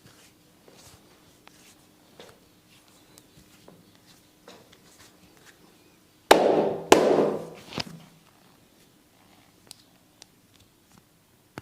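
Faint soft rubbing and light clicks of hands working over skin, then about six seconds in two loud sharp smacks about half a second apart and a smaller one just after: hands slapping the body during a massage.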